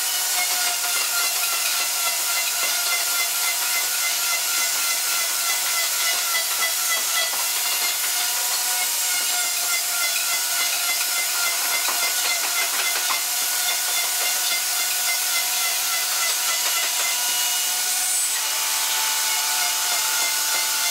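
Maktec MT362 plunge router running at full speed, its bit cutting into a wooden plank: a steady high motor whine over a hiss of cutting. The pitch shifts slightly near the end.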